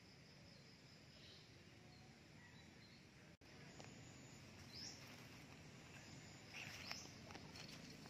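Near silence: faint outdoor ambience with thin, steady insect calls, a brief high chirp about five seconds in, and faint rustling near the end.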